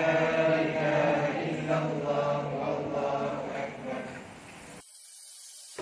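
Several voices chanting together in long held notes, a chanted Quran recitation. The chant cuts off abruptly about five seconds in, leaving a faint hiss.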